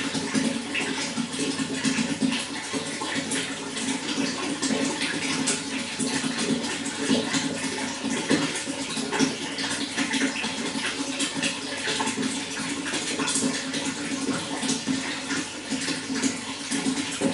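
Running water flowing steadily, with a constant splashing, babbling rush.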